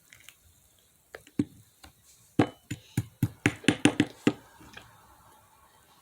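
A quick run of about a dozen sharp knocks and clatters, starting about a second in and bunching closely together towards the end, like tableware or a food container being handled while eating chicken.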